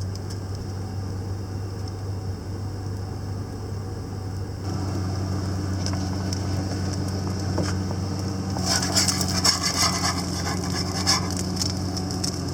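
1995 Ford Ranger engine idling steadily, with crackly sizzling and scraping from a frying pan for a couple of seconds about two-thirds of the way through.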